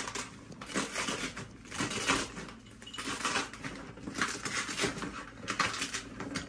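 Rustling and crackling of delivery packaging being pulled open by hand, in a string of short noisy bursts.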